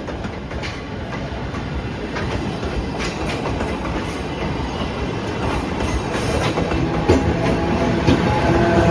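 Train running along the track, the wheels clicking over rail joints and the rumble growing steadily louder. Steady tones come in about two seconds before the end.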